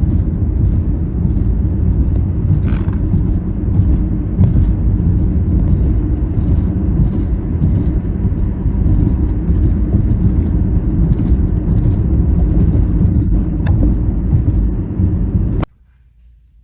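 Steady low road and engine rumble inside a moving car, which cuts off suddenly near the end.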